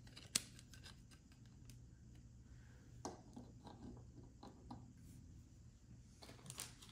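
Faint clicking and rustling of trading cards being handled, with one sharper click about half a second in, over a low steady hum.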